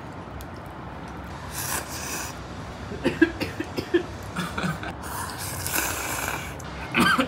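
Two long slurps of instant ramen noodles, with a few quieter mouth sounds between them.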